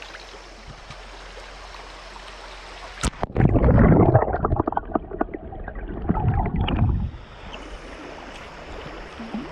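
Shallow creek running steadily. About three seconds in there is a splash, and the sound turns into a loud, muffled underwater rushing and gurgling for about four seconds as the microphone goes under the water, then the plain stream sound returns.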